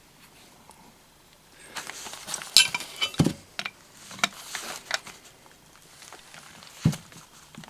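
Scattered metallic clicks and knocks from a shifting spanner and brass tap parts being handled, a handful of separate strikes and scrapes after a quiet start.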